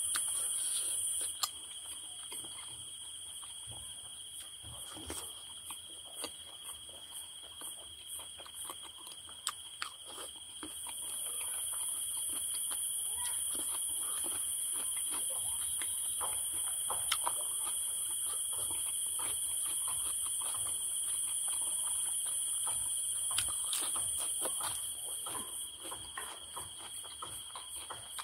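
Insects chirring in a steady, high-pitched chorus that stops about a second in and starts again near the middle, with scattered light clicks and taps throughout.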